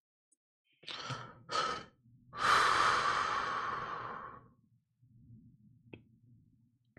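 A woman takes two short breaths in, then lets out a long sigh that fades over about two seconds. A small click follows near the end.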